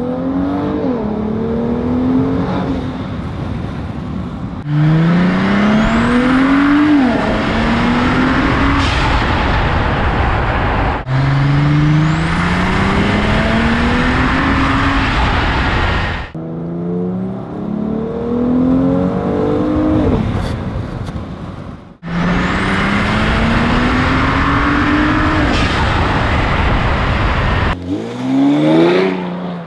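Cadillac CTS VSport's twin-turbo V6, fitted with a ZZP cold-air intake and a Corsa exhaust, accelerating hard: the engine note climbs steadily, then drops back at each upshift. Several short runs are cut together, heard from inside the cabin with a window open, then from a bumper-mounted camera, and ending with the car driving past.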